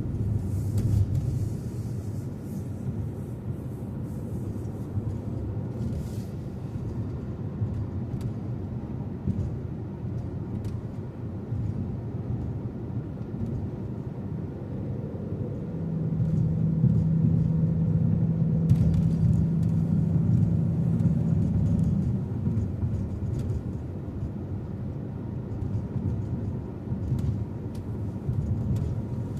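Road and engine noise of a car being driven, a steady low rumble. About halfway through, a steady low hum joins in and the noise grows louder for about six seconds before settling back.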